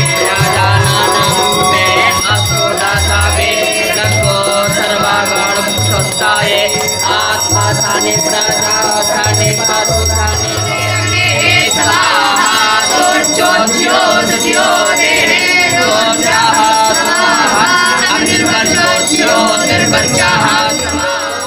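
Devotional aarti music: singing over continuous jingling, rattling percussion, with low thuds now and then.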